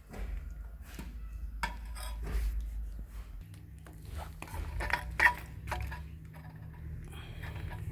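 Light clinks and knocks of hard objects being handled, with one sharper clink about five seconds in, over a steady low hum.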